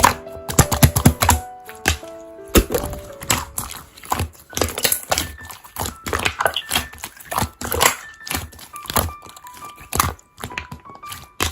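Slime being squeezed and pressed by hand, making a rapid, irregular run of wet clicks and pops, with soft background music under it.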